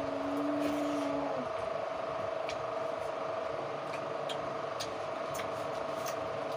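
Eating sounds of people eating rice by hand from steel plates: scattered short clicks and smacks over a steady hum, with a brief held tone in the first second and a half.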